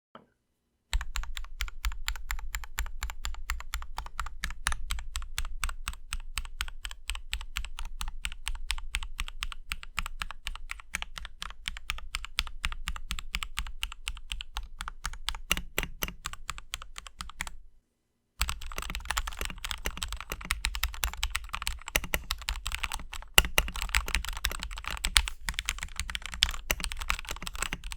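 Fast, continuous typing on an NPET K61 65% mechanical keyboard with pre-lubricated Gateron red linear switches, many keystrokes a second. It breaks off briefly about two-thirds of the way through, then resumes with a brighter, sharper clatter.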